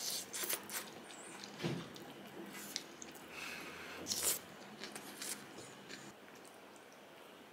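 Someone eating a home-cooked meal of rice and kimchi stew: soft chewing with a string of light clicks and taps from utensils on dishes, which die away about six seconds in.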